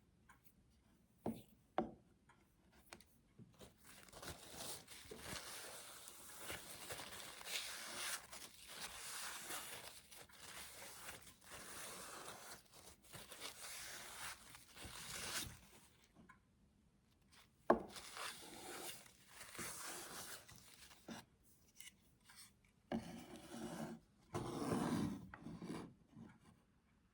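Scraping and rustling handling sounds with scattered sharp clicks, in a small room.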